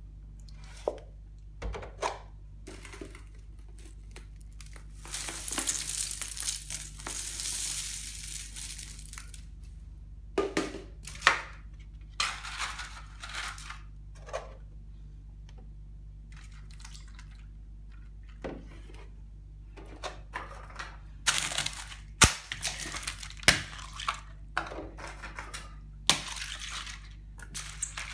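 Dry flake cereal poured out onto a hard countertop in a long rustling rush, with crinkling and tearing of its packaging. This is followed by scattered crunches, crackles and light knocks as food is dropped and handled on the counter and in a foam bowl.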